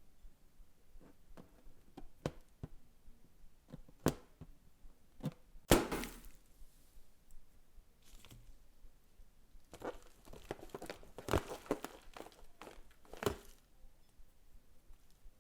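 Slime being worked by hand with mix-ins: scattered sticky clicks and crackles, a sharper knock about six seconds in, and a denser run of crackles from about ten to thirteen seconds.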